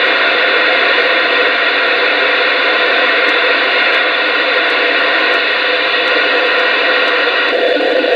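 CB radio's speaker giving a steady, loud rush of static with no station on the channel while the channels are stepped through; a few faint ticks sit on top of the hiss.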